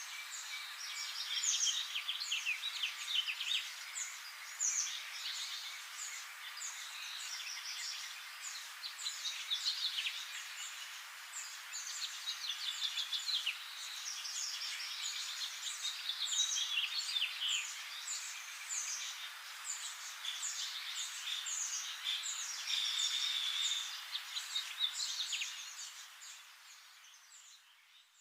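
Many birds chirping together, a dense run of short high calls that fades out near the end.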